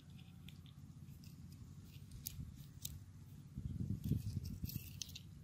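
Faint small ticks and clicks of fingers working nylon fishing line onto a small piece of bait-sized tubing, with an uneven low rumble coming in about two-thirds of the way through.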